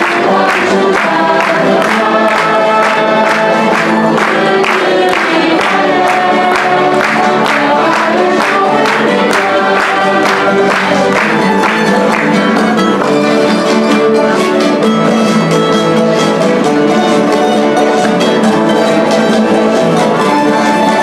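Live folk ensemble of strummed acoustic guitars, mandolins and accordion playing, with voices singing over it. The strumming runs in a steady rhythm for the first half, then gives way to a passage of longer held notes.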